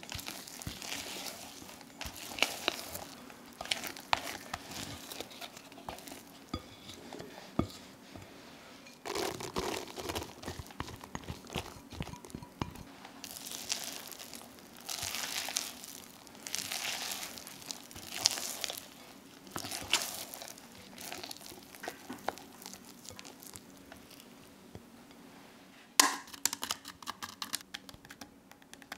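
A spatula stirring and folding thick, wet carrot cake batter in a glass bowl: repeated sticky stirring strokes, each lasting about a second, with scattered clicks against the glass. Near the end comes a short burst of rapid crackling clicks.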